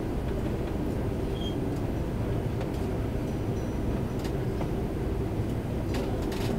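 Airbus A330-300 cabin noise while taxiing: a steady low rumble of the idling engines and cabin air, with a faint hum and a few light clicks or rattles from the cabin.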